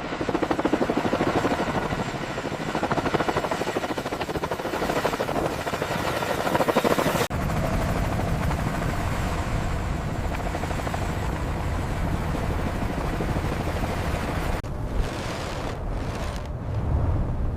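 Helicopter rotor beating rapidly for about seven seconds, then an abrupt switch to a steady low rumble.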